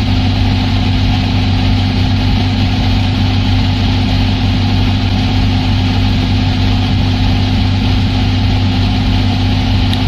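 Washing machine drum spinning at 1000 rpm in the spin cycle, heard from inside the drum: a loud, steady hum with an even rushing noise.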